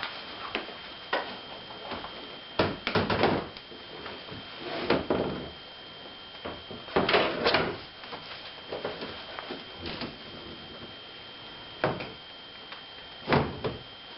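Irregular clunks, knocks and rattles of a steel car hood hung from a lifting strap being shifted and positioned over its hinges, with the loudest knocks clustered about three, five and seven seconds in and two more near the end.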